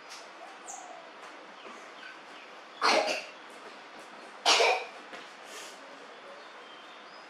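Two short coughs, about a second and a half apart.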